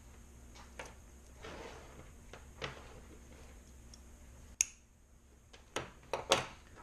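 Scattered clicks and light knocks from small tools and parts being handled. A sharp click comes about four and a half seconds in, and a quick cluster of three near the end.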